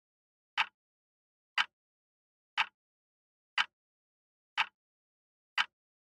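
Acctim radio-controlled quartz wall clock ticking, one sharp tick each second, six ticks in all.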